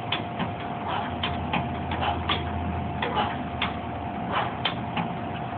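Steel pull-up rig clicking and clanking irregularly as a person does repeated pull-ups, about two or three clicks a second, over a steady high hum.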